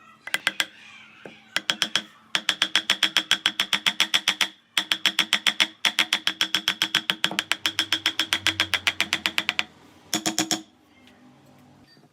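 Rapid, evenly spaced mechanical clicking, about nine clicks a second, in several runs with short pauses between them; the longest run lasts nearly four seconds.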